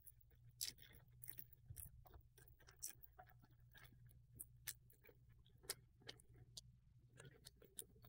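Faint crinkling and rustling of thin plastic packaging bags, with scattered small clicks and crackles, as the resealable bag is opened and the little bags of adapter tips are handled.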